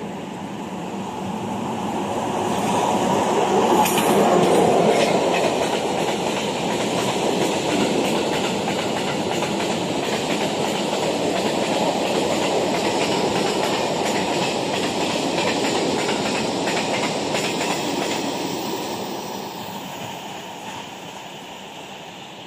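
Class 461 electric locomotive passing at the head of a freight train of hopper wagons, loudest about four seconds in. The wagons' wheels then clatter steadily over the track before the sound fades away over the last few seconds.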